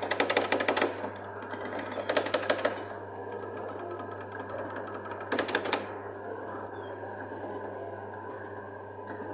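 Coin-operated kiddie ride's electric drive motor running with a steady hum as the ride rocks, broken by three short spells of rapid rattling at the start, around two seconds in and about five seconds in. The hum cuts off near the end as the ride's cycle finishes.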